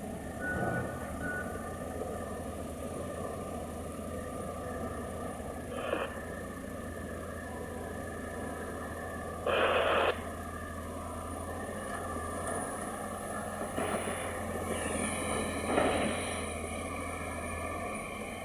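Heavy machinery engine running steadily, with a few short noisy bursts, the loudest about ten seconds in.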